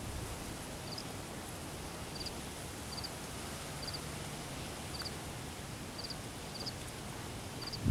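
A cricket chirping, each chirp a quick run of two or three high pulses, repeating roughly once a second over a steady outdoor hiss.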